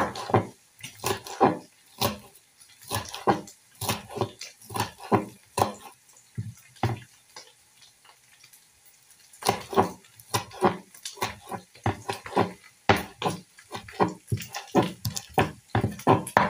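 Kitchen knife chopping spring onions on a wooden cutting board: runs of quick sharp taps of the blade on the board, stopping for a couple of seconds just past the middle, then coming back faster.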